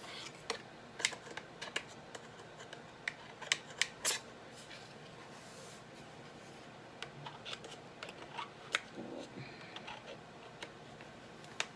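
Small hard plastic parts being handled and pushed into place: scattered sharp clicks and taps, several in quick succession in the first four seconds, then lighter ones.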